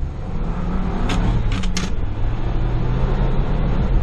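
2021 Ford Bronco's engine running steadily under way on a rough dirt trail, heard from inside the cabin with a low rumble of the tyres and body. A few short sharp clicks come between one and two seconds in.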